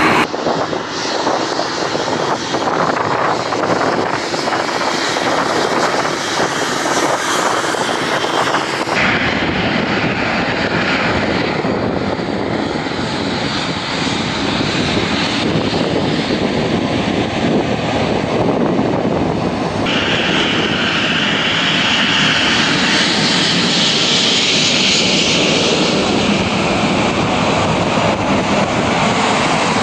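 Airliner engines running close by on the ground, in three cuts. First a De Havilland Canada Dash 8 Q400's twin turboprops with their propellers turning. After about nine seconds an Airbus A319's jet engines take over, and after about twenty seconds another jet airliner's engines.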